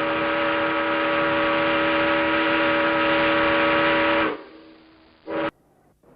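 A ship's horn sounding one long steady blast of several tones together, lasting about four seconds and cutting off. About a second later comes one brief short blast.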